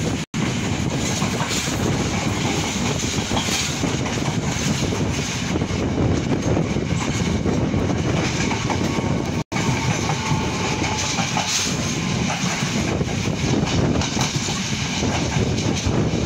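Passenger train running along the track, heard from an open carriage door: a steady rumble with the wheels clattering over the rails. The sound cuts out abruptly for an instant twice, once just after the start and once about halfway.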